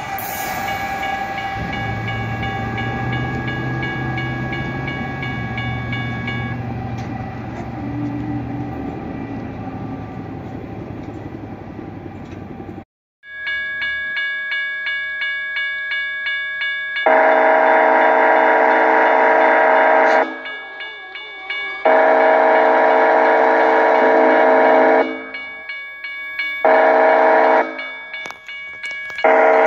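A double-stack freight train runs past a grade crossing with a low rumble while the crossing bell rings. About halfway through, the crossing bell dings about twice a second, and a locomotive horn sounds the grade-crossing signal: two long blasts, a short one, then another long one.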